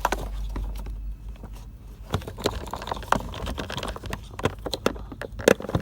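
Scattered small clicks and knocks of plastic as wiring connectors are worked loose from the back of an instrument cluster, over a low steady hum.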